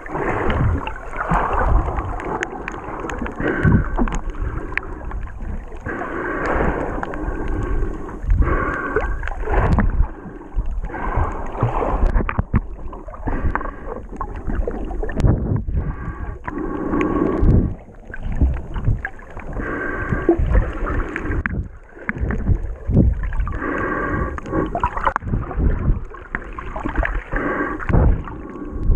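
Muffled underwater water noise, heard through a camera's waterproof housing as a snorkeler swims: sloshing, gurgling and rumbling that swells and fades every few seconds.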